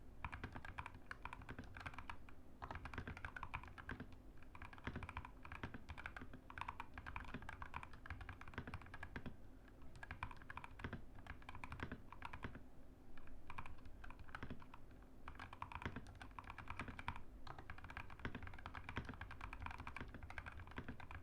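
Mechanical keyboard with Gazzew Boba LT linear switches being typed on at a steady pace: fast runs of keystrokes broken by brief pauses.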